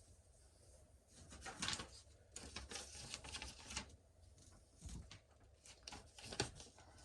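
Paper rustling and crinkling in irregular bursts as a sheet is picked up and handled.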